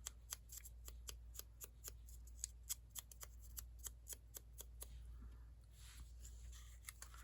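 Scissors snipping paper in a quick run of small, faint cuts, about four or five a second, thinning out after about five seconds, over a low steady hum.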